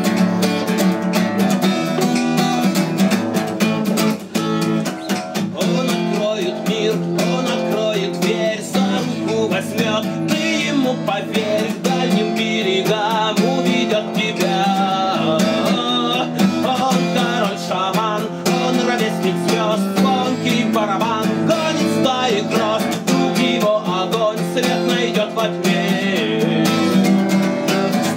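Cutaway acoustic guitar strummed steadily in a live solo song, with a man's singing voice coming in over it at times.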